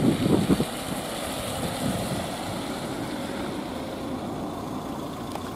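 Fire engines' diesel engines running steadily at the scene, a low rumble with a faint steady whine over it. Wind buffets the microphone in the first half-second.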